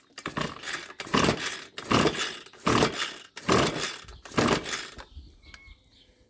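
Ryobi RBC254 two-stroke string trimmer being pull-started with the choke on: six quick recoil-starter pulls, each a rasping rope pull with the engine cranking over without catching.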